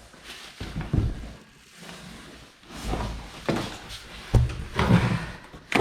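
Irregular knocks, thumps and scraping from a cardboard bike shipping box and its packing being handled and pulled open, busier in the second half.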